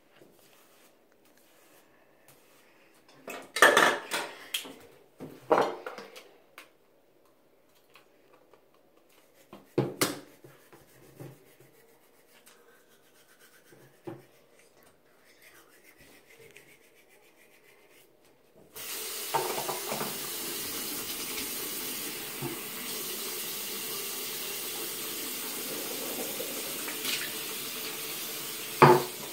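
A few scattered knocks and clatters, then, about two-thirds of the way in, a bathroom sink tap is turned on and runs steadily.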